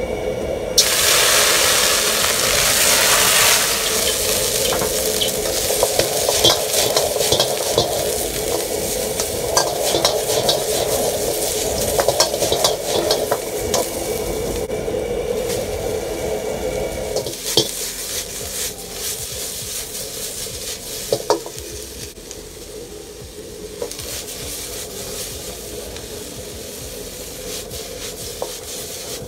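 Stir-frying in a carbon steel wok over a high-power gas wok burner: a loud sizzle starts about a second in as food hits the hot oil, then a Chinese ladle scrapes and clicks against the wok as the onions, peppers, chillies and crispy chicken strips are tossed. The burner's steady roar runs underneath, and the frying grows quieter in the second half.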